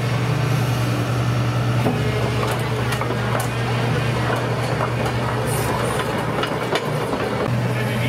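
Toy RC excavator working in gravel: a steady low motor hum, with stones clicking and clattering as the bucket digs in.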